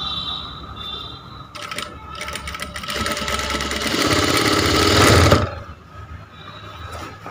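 Electric sewing machine stitching a seam: the needle runs in rapid strokes from about a second and a half in, speeds up and gets louder, then stops abruptly about five and a half seconds in.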